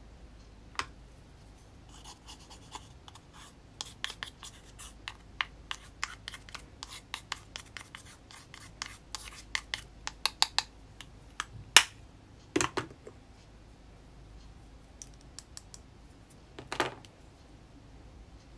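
A thin metal tool scraping and prying pressed powder makeup out of its compact pan: a run of quick scratchy clicks and crumbling. A few louder knocks come around the middle and near the end.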